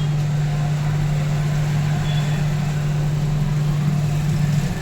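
A steady low mechanical hum over a background hiss, changing about four and a half seconds in.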